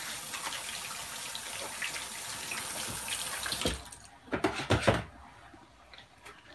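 Kitchen tap running in a steady stream and shut off abruptly about four seconds in, followed by a few quick knocks and clatters.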